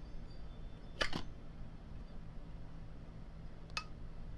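Sharp metal clicks from a brand-new Zippo windproof lighter as its lid and insert are worked: a quick double click about a second in and a single click near the end.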